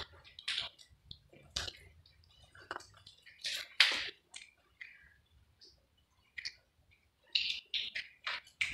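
Slow, irregular footsteps crunching and scuffing underfoot, the loudest about four seconds in.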